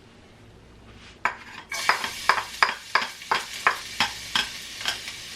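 Minced garlic sizzling in hot oil in a non-stick wok, the sizzle setting in about a second and a half in. A cooking utensil stirs it in quick, regular strokes, about three a second.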